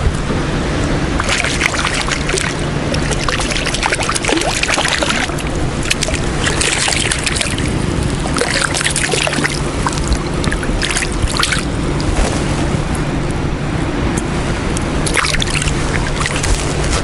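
Steady low rumble of wind on the microphone under a constant low hum, with bursts of crackling noise through the first two-thirds.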